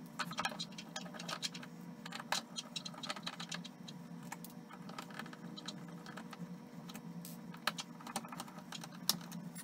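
Irregular small clicks and taps of a screwdriver and screws being worked out of a Valken V12 airsoft engine's chassis, with small screws set down on a wooden desk.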